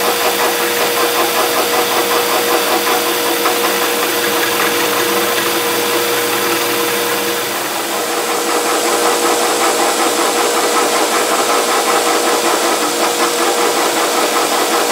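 Benchtop milling machine face-milling the top of a steel plate: the spindle motor and gearhead run with a steady whine under the fast rattle of the cutter taking its cut. The sound dips briefly a little past halfway.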